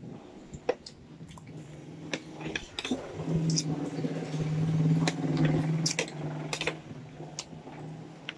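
Close-up eating sounds of a chicken foot being gnawed and sucked, with many wet smacks and sharp clicks. A steady low hum runs through the middle, loudest from about three seconds in and weaker near the end.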